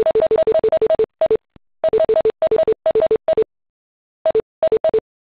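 Conference-call beeps: short two-note high-low tones repeated rapidly, in a dense run at first and then in shorter clusters with gaps. They are typical of exit tones sounding as participants drop off a call that has just ended.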